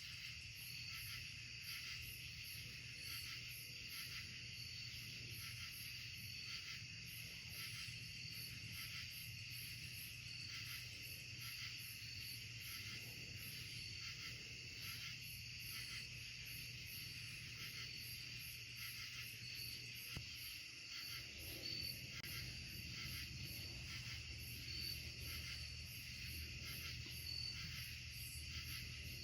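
Night-time insect chorus of crickets and similar insects: steady, high, evenly pulsing trills, with a faint low hum underneath.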